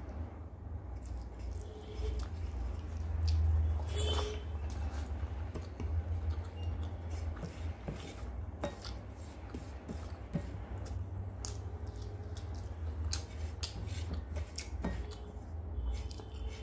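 Fingers mixing rice and fish on a plate: scattered soft clicks and squishes of fingertips and food against the plate, the sharpest about four seconds in. Under them runs a steady low rumble.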